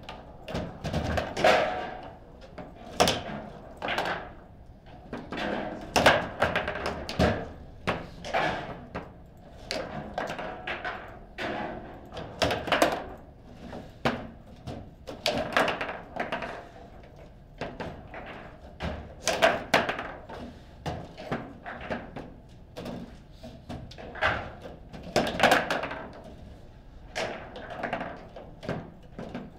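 Table football game in play: the hard ball knocking against the plastic figures and the table's sides, with rods slammed and spun. Irregular sharp knocks and thuds, often two or three in quick succession.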